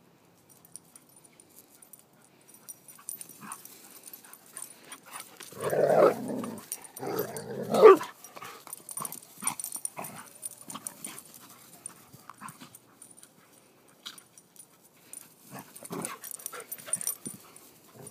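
A dog and a puppy play-fighting on grass, growling and yipping amid scuffling, loudest in two bursts about six and eight seconds in and again briefly near the end.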